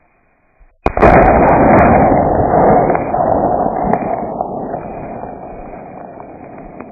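A single loud blast about a second in, followed by a long noisy echo that slowly fades over about five seconds: a large explosion in a melon-shooting field.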